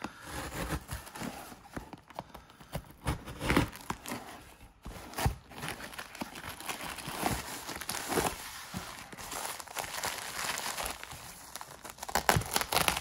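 Packaging being slit open with a small knife and handled: cardboard of a mailing box scraping and tearing, then a plastic padded mailer crinkling as the blade cuts into it. Irregular rustling with scattered sharp clicks.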